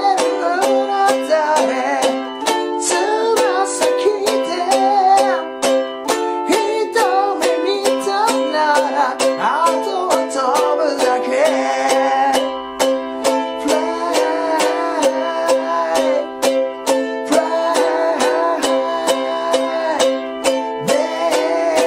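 A man singing in Japanese while strumming a ukulele hard in fast, driving chords, cycling Am, G7 and C.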